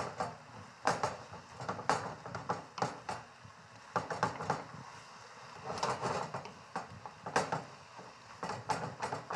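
A utensil stirring ground meat in a stainless-steel skillet, with irregular knocks and scrapes against the pan, one or two a second and sometimes in quick runs.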